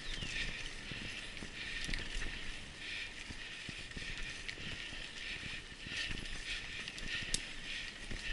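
Mountain bike being ridden along a leaf-strewn dirt singletrack: steady tyre and trail noise with many small, irregular knocks and rattles from the bike over bumps, and a sharper click near the end.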